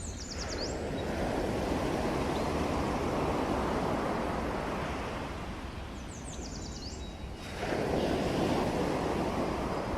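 Ocean surf washing in, two waves surging up one after the other, the second arriving suddenly about seven and a half seconds in. A bird chirps briefly just before the second wave.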